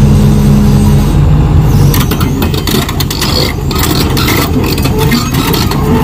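Kobelco SK200-8 excavator's diesel engine running steadily, joined about two seconds in by a dense, irregular clanking and squealing of the steel crawler tracks and undercarriage as the machine travels. The track chain is slack enough to look ready to come off, and the squealing is put down to the metal not having been greased.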